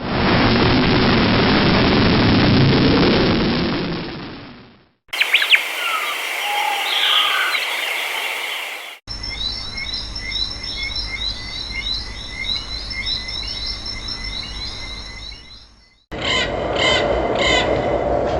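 A run of separate nature sound effects cut one after another. A steady rushing noise lasts about five seconds, then comes a short clip with chirps and gliding calls, then several seconds of birds chirping over and over. Near the end a new clip starts with quick repeated calls.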